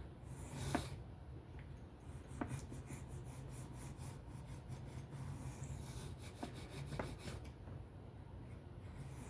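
A folding knife blade stroked back and forth on a 400-grit sharpening stone during freehand sharpening, giving a quick run of rasping scrapes several a second. There is a sharp breath through the nose just before the strokes begin.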